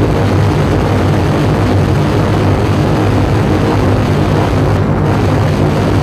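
Loud, steady electronic noise drone from a live noise performance, played through PA speakers: a dense rumbling hiss with low humming tones underneath, its top end briefly dropping out about five seconds in.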